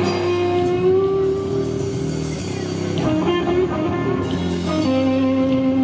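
A rock band playing live through a PA: held electric guitar notes over a drum kit with cymbal hits. The sound eases off a little midway, then comes back in full near the end.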